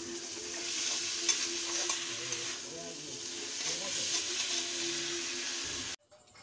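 Food frying in a pan: a steady sizzle with a few light clicks of the utensil as it is stirred. It stops suddenly near the end.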